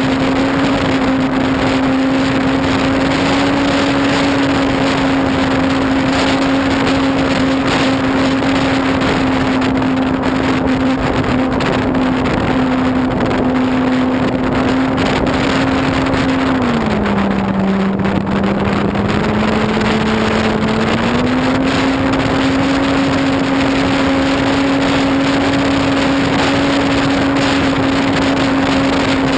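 ParkZone Corsair RC plane's electric motor and propeller, heard from on board, running with a steady drone that drops in pitch for a few seconds past the middle as the motor slows, then comes back up. Wind rushes over the microphone.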